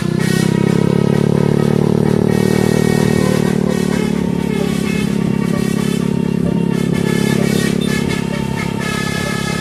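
Road vehicle engine running steadily at an even speed, with musical tones over it.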